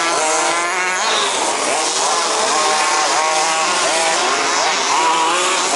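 Several 1/5-scale Baja RC cars' small two-stroke petrol engines running together as they race, each revving up and down with throttle.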